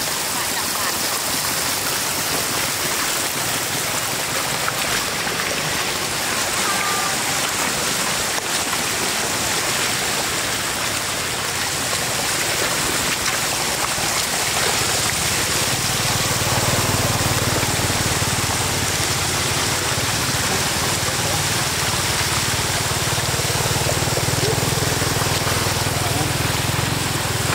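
Floodwater spilling over the edge of a road in a thin sheet, a steady rushing of water. A low steady hum comes in about halfway through.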